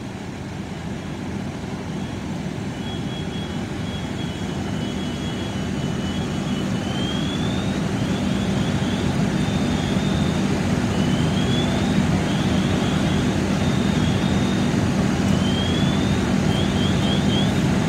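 Fire engine's diesel engine and pump running steadily: a continuous low hum that grows gradually louder. Faint high-pitched chirps come and go over it.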